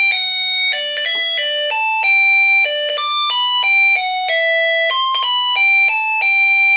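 Snap Circuits Jr. music IC playing its electronic tune through the kit's small speaker: a quick melody of bright, doorbell-like beeping notes, set off by the sound-activated whistle switch. The tune cuts off suddenly at the end.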